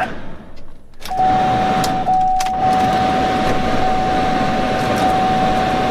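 Starter motor of a Chevrolet Spark-based Domino's DXP car cranking the engine, which does not catch: a steady whine over a rough clatter. The first attempt cuts off at the start, and a second attempt begins about a second in and keeps cranking without the engine firing.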